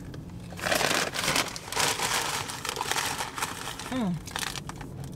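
Crunching and crinkling close to the microphone for about three seconds as a hot pepper is bitten into and chewed. About four seconds in comes a short falling 'mm' from the eater.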